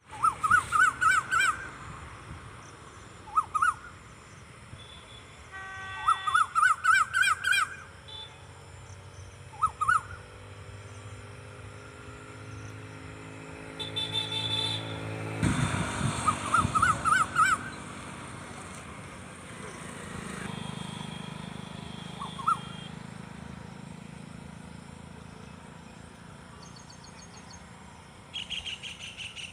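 Birds calling outdoors: repeated short phrases of quick, rising chirped notes, a few seconds apart, with other single calls between them. A low rumble swells briefly about halfway through.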